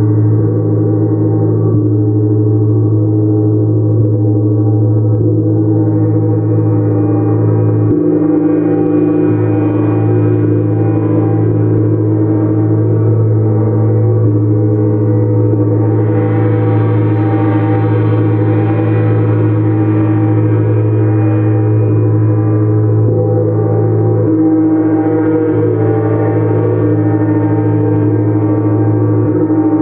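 Gongs played continuously in a gong bath: a dense, sustained wash of ringing tones over a deep steady hum, its upper shimmer swelling and fading every few seconds as the gong is struck again.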